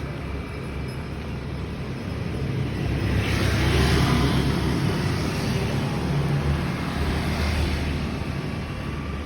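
Road traffic: a steady low rumble of passing vehicles, with one vehicle going by and swelling loudest about three to four seconds in, and a smaller swell later.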